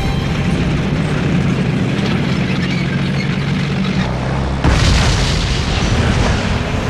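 Battlefield sound: a low, steady rumble, then a loud explosion about four and a half seconds in, its noise slowly dying away.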